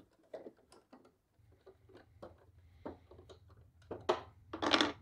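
Hands handling the plastic dust chute and housing of a DeWalt DW735 thickness planer, which is switched off: scattered light clicks and taps of plastic and screws. Near the end there are two louder, scraping handling noises as the chute is worked loose.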